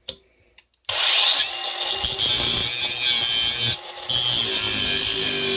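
Ryobi 18V One+ HP brushless cordless angle grinder with a cut-off wheel, starting up about a second in and cutting through a steel bolt with a loud, steady grinding screech that dips briefly partway through.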